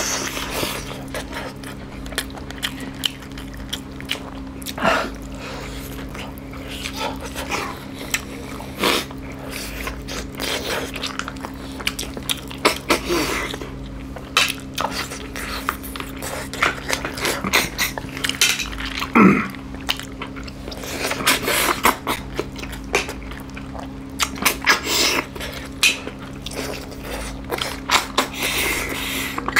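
Eating sounds of two people eating snail and pork curry with rice by hand: chewing, lip smacking and slurping in short irregular bursts, with occasional clicks. A steady low hum runs underneath.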